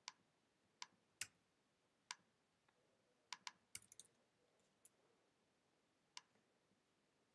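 Sparse, quiet clicks of a computer keyboard and mouse: about a dozen single keystrokes and clicks at uneven intervals, with a quick cluster of three or four just under four seconds in.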